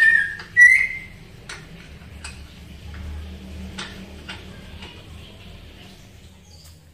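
Hand tools working on a car's engine-mount bolts: two short squeaks in the first second, then a few scattered metallic clicks and taps.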